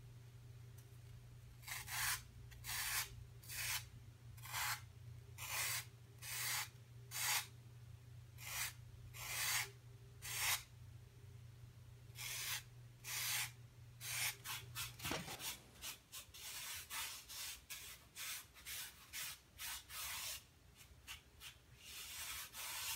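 A hand tool scraping across carving foam as a climbing hold is shaped, in even strokes about one a second, turning to quicker, shorter strokes about halfway through. A steady low hum stops about fifteen seconds in.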